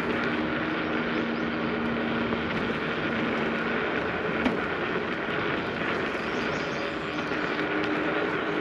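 Ausom L2 Max dual-motor electric scooter riding on a paved path: a steady rush of wind and tyre noise with a low motor hum that drops away midway and comes back near the end. A single sharp click sounds about four and a half seconds in.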